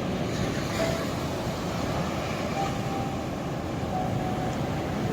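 Ocean waves breaking and washing in, a steady surf noise.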